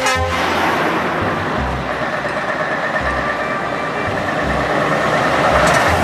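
Heavy Scania trucks driving past on a road, engines and tyres making a steady traffic noise that swells near the end as one passes close.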